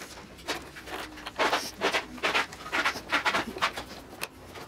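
Steel roller chain links rattling and clinking as the chain end is handled, with scraping from a screwdriver tightening a hose clamp on it. It comes as a string of short, irregular rattles and scrapes, bunched in the middle.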